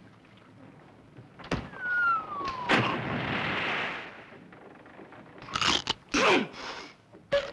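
Slapstick comedy sound effects: a sharp knock, then a whistle sliding down in pitch, a click and about a second of hiss. Near the end come two short vocal grunts falling in pitch.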